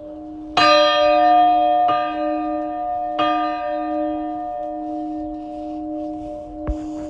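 Hand-swung church bells, rung manually: three clapper strikes about 1.3 seconds apart, each a little weaker, then no more strikes as the tone hums on and slowly fades. A sharp knock near the end.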